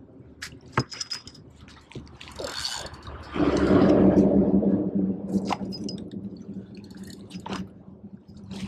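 Water splashing and dripping around a landing net being worked beside a kayak, with sharp scrapes and knocks of gear against the hull. A steady low hum comes in about three and a half seconds in and is the loudest part.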